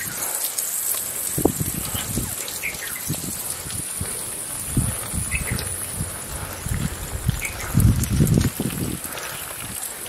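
Water gushing from an open tap on a metal pipe and splashing onto rocks, with occasional low thumps, the loudest about eight seconds in.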